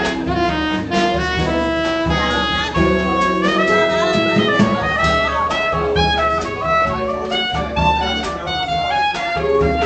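Soprano saxophone playing a jazz solo line of quick notes with a few held ones, over upright bass and drums from a live jazz trio.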